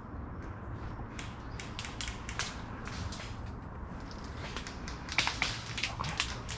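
Footsteps crunching through dry leaves and twigs, a few crackling steps a second that come faster and louder near the end, over a steady low rumble.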